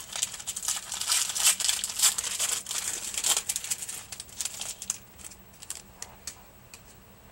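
A hockey card pack wrapper being torn open and crinkled, a dense crackle for about four seconds, then a few scattered clicks as it goes quiet.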